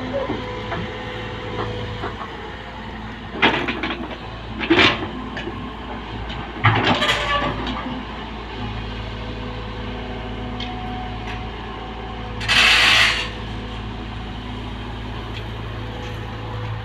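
Excavator engine running steadily while loading, with three loud clattering knocks of the bucket and material in the first half and a hiss lasting about a second later on.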